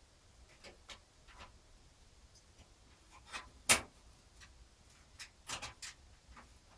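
A motherboard being fitted into a PC case: scattered light clicks and knocks of the board and its parts against the case, with one sharp knock a little past halfway and a few more near the end.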